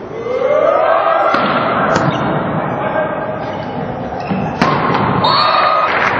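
Volleyball game sound: sharp ball hits and thuds a few times, over shouting voices of players and crowd.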